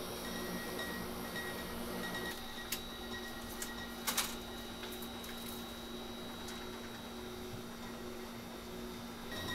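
Steady mechanical hum of machinery with a faint steady whine, broken by a sharp click and then a double click near the middle.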